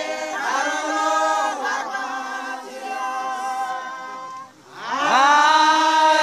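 A group of men singing a praise song a cappella in a local language, in held chords. They break off briefly about four and a half seconds in, then come back in louder on a long held chord.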